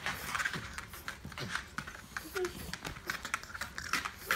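Rapid light clicking and scuffling from a pug in a dog wheelchair scrabbling and tussling on a wooden floor, with a few short grunts in between.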